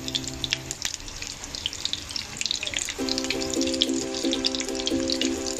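Cooking oil heating in a frying pan, crackling and spitting with many small scattered pops.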